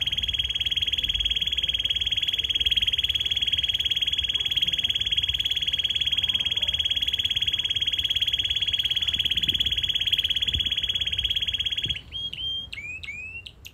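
Red canary singing a long, unbroken high trill, then near the end breaking into a quick run of short sweeping chirps.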